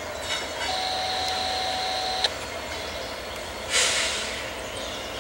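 Train passing with a steady low rumble. About a second in, a steady high-pitched squeal is held for about a second and a half and cuts off sharply with a click. A short burst of hissing follows near the end.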